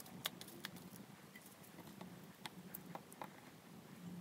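Faint, scattered clicks and taps of chicken pieces being dredged in almond flour in a small plastic tub, over a low, quiet hum.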